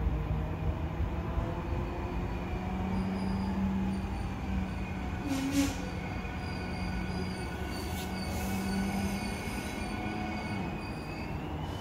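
Suin-Bundang line electric train pulling into the station, its wheels squealing in thin high tones over a steady low hum. Two sharp clicks come about halfway through.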